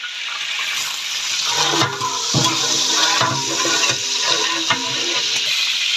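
Bay leaves and whole spices sizzling steadily in hot oil in a large aluminium cooking pot, with a loud, even hiss.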